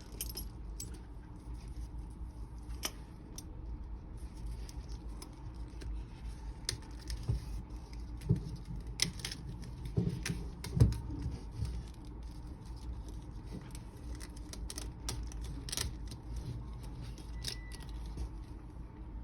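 A handmade Italian-leather belt creaking as it is bent and flexed by hand: scattered short creaks and clicks, with a run of louder ones about halfway through.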